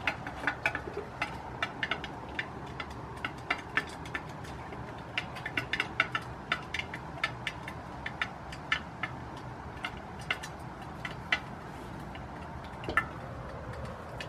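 Hens pecking feed from a metal bowl: quick, irregular clicks of beaks striking the metal, two to four a second, over a steady hiss. The pecking thins out and stops about three seconds before the end, with one louder knock just before it ends.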